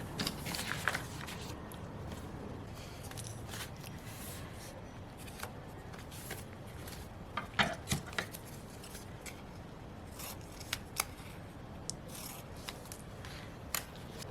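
Scissors snipping paper in short runs of crisp cuts: a few near the start, a louder cluster about halfway through, and single snips later on.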